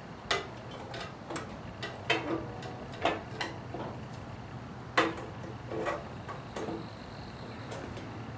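Irregular sharp clicks and light knocks of parts and hand tools being handled while reassembling a motorcycle's wiring, about a dozen, the loudest about five seconds in, over a steady low hum.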